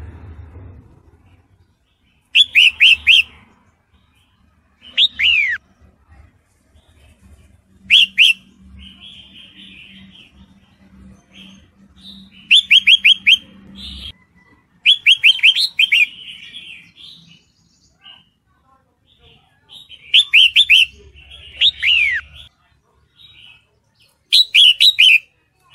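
Red-whiskered bulbul calling: about eight short bursts of quick chattering notes, a few seconds apart, two of them ending in a falling slur. The calls are presented as those of a female in breeding condition calling to a male.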